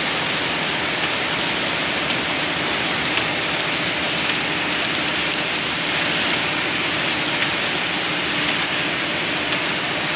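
Concrete pump running while concrete pours out of its delivery hose: a steady rushing noise with a faint hum underneath.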